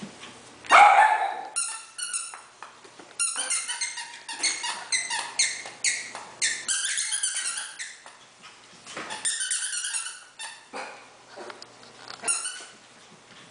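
Havanese puppies yipping and barking in play: many short, high-pitched yips in quick runs, the loudest about a second in.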